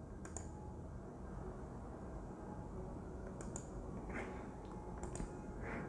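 Quiet room tone with three faint, sharp clicks spread a second or more apart.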